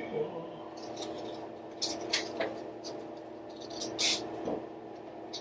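Scissors snipping construction paper, cutting small notches: a few short snips about two seconds in and a louder snip about four seconds in, over a steady low hum.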